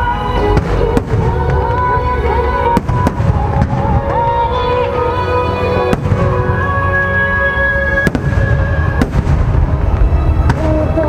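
A fireworks display going off: a steady low rumble of explosions with sharp bangs of bursting shells every second or so, and music playing loudly over it.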